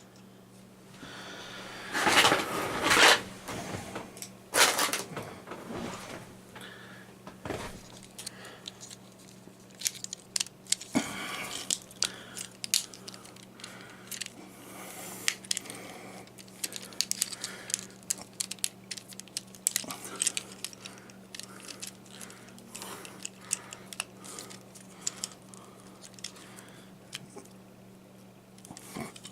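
Hard plastic parts of a Transformers action figure clicking and snapping as they are rotated and pegged into place by hand: many small scattered clicks, with two louder rustling handling noises a few seconds in. A faint steady electrical hum lies underneath.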